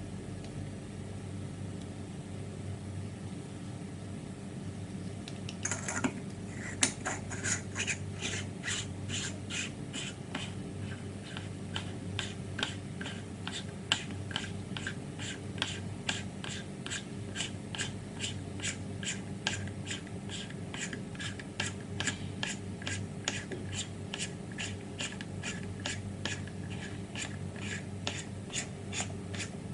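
Quick, regular small clicks, a little over two a second, as a rod is worked in and out of the top of an airsoft Moscart shell. The clicks begin about six seconds in, after a short scraping rattle, over a steady low hum.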